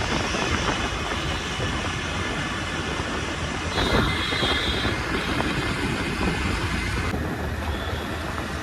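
Steady rush of wind and road noise from riding a motor scooter through city traffic, with a brief high tone about four seconds in.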